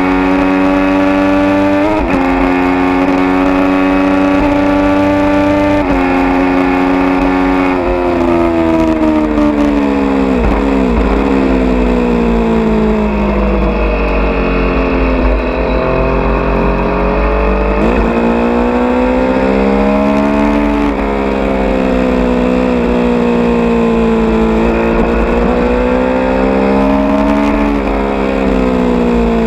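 Triumph Street Triple R 675's inline-three engine through an SP Engineering aftermarket exhaust fitted with baffle wadding, heard onboard at speed. It holds high, steady revs for the first eight seconds or so, then the revs fall and rise again several times.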